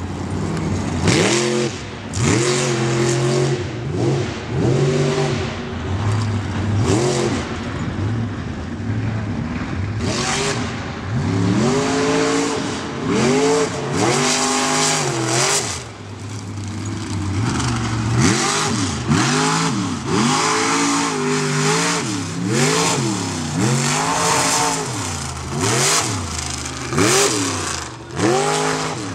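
Lifted mud truck's engine revving hard in repeated surges, its pitch climbing and dropping about once a second as the throttle is worked, with a brief lull about halfway. Each surge comes with a hiss of spinning tyres throwing dirt.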